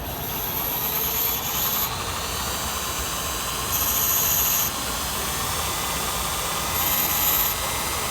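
Bench grinder with a silicon carbide stone running steadily while a carbide-tipped drill bit's cutting edges are touched to the wheel three times in short spells of grinding, the first the longest, to resharpen the bit.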